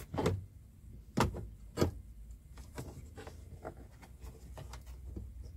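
Handling noise from fitting a car-audio door speaker and its wiring into a plastic truck door panel: three sharp clicks or knocks in the first two seconds, then lighter scattered taps and rubbing.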